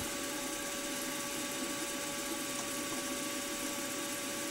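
Milling machine spindle running steadily at about 1000 RPM, turning an edge finder as it is fed toward the workpiece edge: an even motor hum with a steady faint whine.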